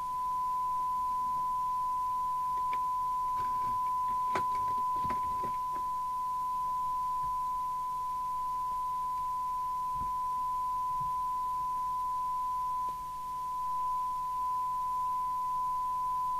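A steady 1 kHz test tone from an FM CB receiver, the demodulated tone of a signal generator feeding the set while it is aligned against a SINAD meter. A few faint clicks sound around four to five seconds in, and the tone dips briefly about 13 seconds in.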